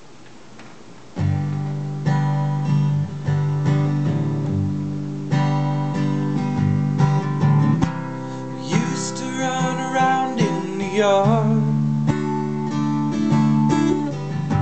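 Epiphone acoustic guitar strummed, playing the introduction of a country-pop song. The strumming starts about a second in, and a wavering higher note is heard near the middle.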